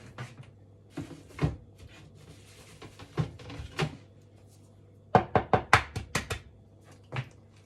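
Eggs being cracked against a mixing bowl: scattered sharp taps of shell on the bowl, then a quick run of about seven loud sharp knocks about five seconds in, and one more near the end.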